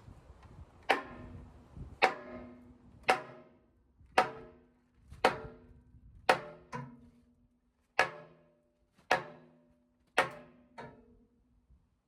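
Hammer blows on metal, about one a second, each ringing briefly at the same pitch, with a couple of lighter taps in between.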